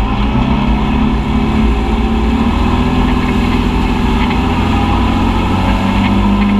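Side-by-side UTV engine running steadily at cruising speed, its note holding level with a slight firming near the end, with tyre and muddy-water noise beneath it.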